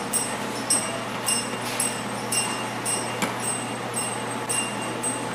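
Claw machine's electronic game sound: short, high-pitched beeps repeating about twice a second while the claw is being played, over a steady low hum.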